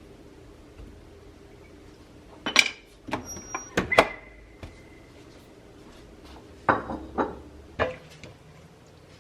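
Kitchen clatter: a handful of sharp clinks and knocks of crockery and utensils in two bursts, one strike near the middle left ringing for about a second and a half.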